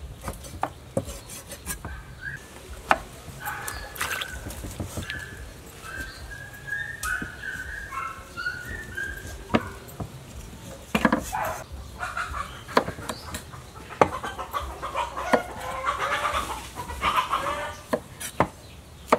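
Chickens clucking in a string of short calls, with sharp knocks of a knife on a cutting board at irregular intervals.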